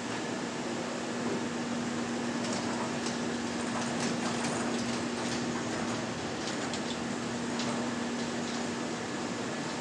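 Steady hum of assembly-line machinery, with a constant low tone and a few faint, light clicks from about two and a half seconds in.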